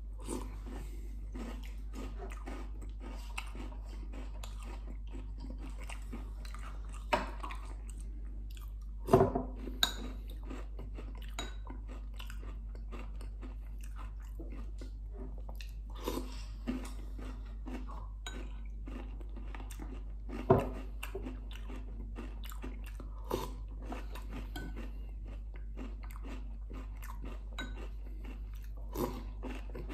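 Close-up chewing and crunching of food eaten by spoon from a bowl, with a few sharper knocks of the spoon against the bowl, the loudest about nine seconds in and again about twenty seconds in, over a steady low hum.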